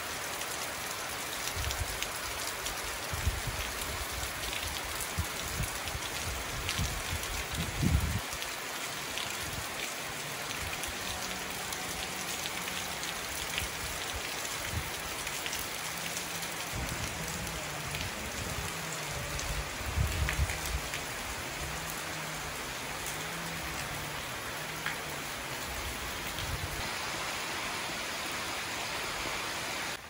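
Monsoon rain falling steadily on trees, leaves and the ground. Low rumbles come and go, loudest about eight and twenty seconds in.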